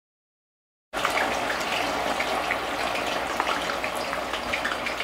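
Potatoes deep-frying in hot oil in a stainless steel pot: a steady, dense sizzle full of small crackles. It starts abruptly about a second in.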